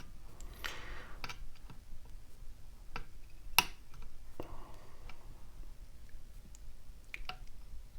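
Lock pick and tension wrench clicking faintly and irregularly in a pin-tumbler lock's keyway as the pins are worked, with one sharper click about three and a half seconds in.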